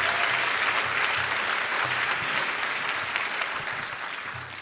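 Audience applauding in a lecture hall, the clapping dying away near the end.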